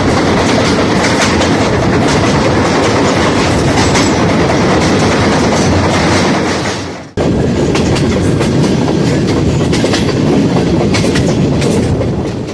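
Benapole Express passenger train running on the track, loud and continuous. About seven seconds in, the sound dips and then comes straight back in full.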